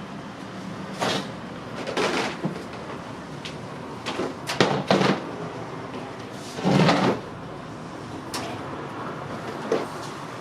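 Several separate knocks and clunks, spaced irregularly, over a steady machine hum.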